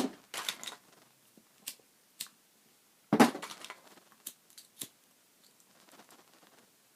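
Plastic lighters clicking and clattering as they are picked up and handled. The sounds come as scattered sharp clicks, with the loudest clatters at the start and about three seconds in.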